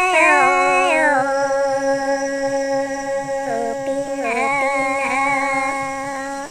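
A woman sings a Red Dao folk song unaccompanied, in long held notes joined by wavering glides in pitch. The last held note breaks off suddenly.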